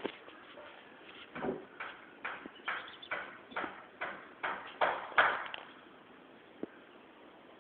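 A sleeping pet snoring: a run of short, raspy breaths, about two a second, that stops about five and a half seconds in.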